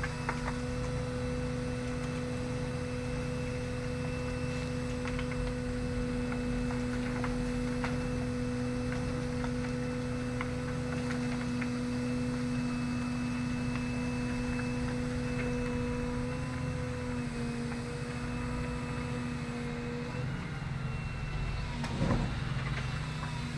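Excavator diesel engine and hydraulics running steadily under load with a constant hum and whine. The pitch dips slightly about three-quarters of the way through and the whine eases off, followed by a short knock near the end.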